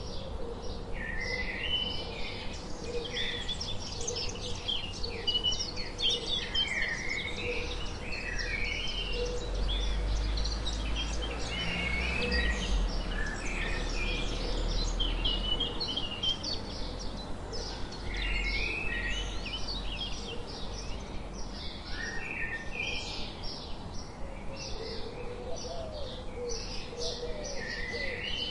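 A flock of house sparrows chirping, many short chirps overlapping in a busy chatter, with a brief low rumble about a third of the way through.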